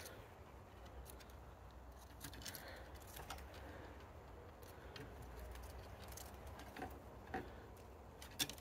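Faint, scattered light clicks and taps over a low background rumble, with a few sharper ones near the end.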